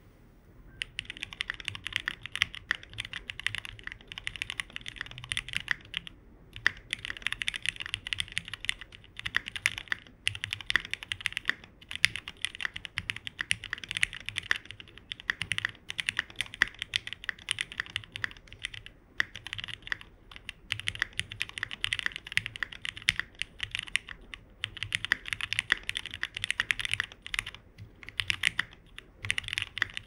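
Mechanical keyboard being typed on quickly and steadily, in bursts with a few short pauses. The keyboard is a plateless GOK 7V with lubed, filmed Cherry Hyperglide Black linear switches and GMK Rudy keycaps. The typing starts about a second in.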